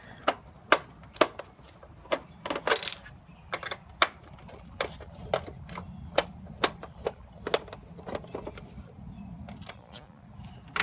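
Screwdriver working out the screws in a tower fan's plastic top: a string of sharp, irregular clicks, roughly two a second and sometimes in quick clusters.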